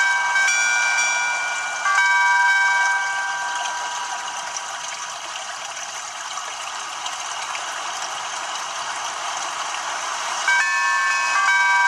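An alarm tone from a Samsung Galaxy J2 running the Viper OS custom ROM, played through the phone's small speaker. Several chiming electronic notes sound, then a hissing wash runs for several seconds, then the chiming notes come back near the end as the tone loops.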